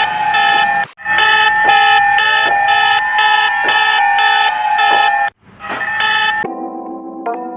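Emergency Alert System–style electronic alarm: a loud multi-tone beep pulsing about twice a second over rising sweeps, cutting out briefly twice. About six and a half seconds in it gives way to soft synthesizer chords.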